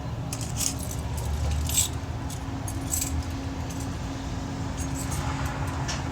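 Steady low hum of an idling car with light metallic jingling clicks, a quick run of them over the first three seconds and a few more near the end.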